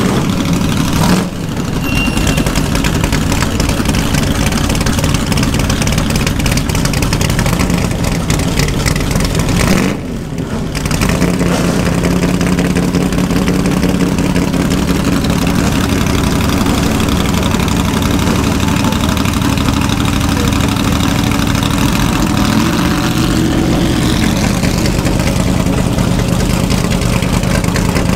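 Historic racing car's engine idling steadily close by through its side-exit exhaust. About 23 seconds in, a short blip raises the revs and lets them fall back.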